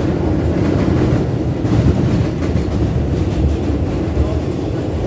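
New York City subway car running on the track, heard from inside the car: a steady low rumble of wheels on the rails with rattling, and a few clacks around two seconds in.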